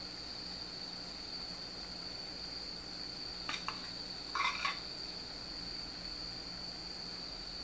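A steady high-pitched whine, like an insect trill, with a faint higher chirp about once a second. About three and a half and four and a half seconds in come brief clinks and scrapes of a ladle and glass bowl as beaten egg is poured over a seafood pancake in a frying pan.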